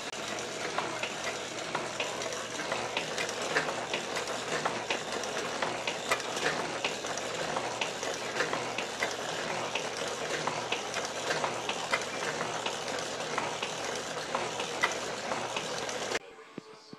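Small FORD metal shaper running, its ram stroking back and forth as the tool cuts a round bar held in the vise: a steady mechanical clatter full of sharp ticks. It cuts off abruptly near the end.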